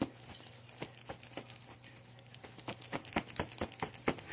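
Handling noise: rapid, irregular small clicks and crinkles, thickest in the second half, over a steady low hum.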